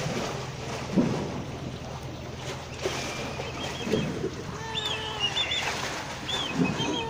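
Tabby kitten meowing several times, short calls and then longer drawn-out ones, over wind buffeting the microphone; small birds chirp faintly.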